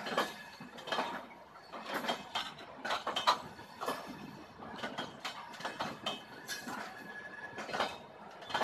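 Indian Railways passenger coaches rolling past, their wheels clattering with irregular sharp knocks and clinks as the bogies run over the rail joints.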